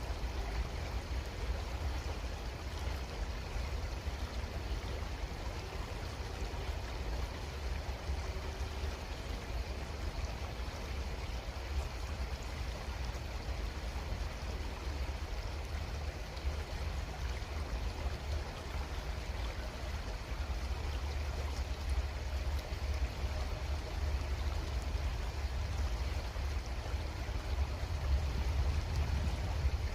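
Creek water flowing steadily, an even rushing with a low rumble underneath, growing a little louder near the end.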